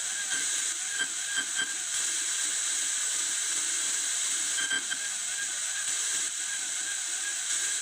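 Steady hiss of static from a radio-signal detector's receiver, with a few faint short chirps about a second in and again just past the middle.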